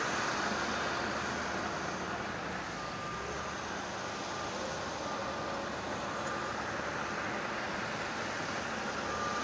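Distant helicopter, a steady drone that fades slightly as it flies away.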